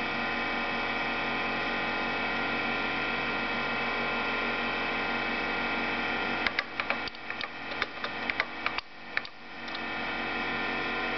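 Steady electrical hum from a Bondwell-16 computer. Just past halfway it is joined by a quick run of clicking keystrokes on its keyboard, about a dozen, as a line of text is typed for the speech synthesizer.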